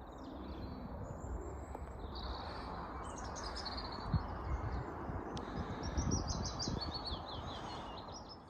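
Birds chirping, a string of short high notes repeating from about two seconds in, over a steady background hiss of outdoor ambience, with a few soft low thumps.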